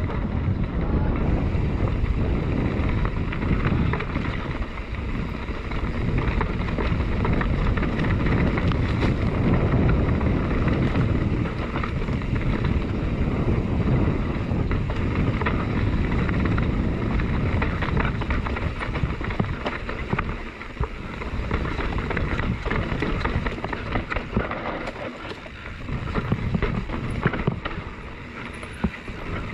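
A mountain bike descending a dirt trail at race speed: wind buffeting the camera microphone over the tyres rumbling on the dirt and a constant clatter of the bike rattling over bumps. It eases a little near the end.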